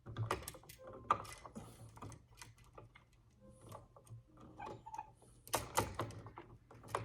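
Irregular light clicks, taps and scrapes of a screwdriver and wire loops being worked onto a dimmer switch's terminal screws.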